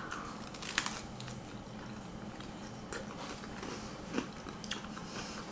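A person biting into and chewing a slice of spinach-crust pizza, quiet mouth sounds with a few small clicks, the sharpest about a second in.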